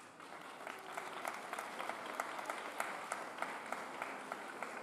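Crowd applauding, a steady patter of hand claps with individual sharp claps standing out.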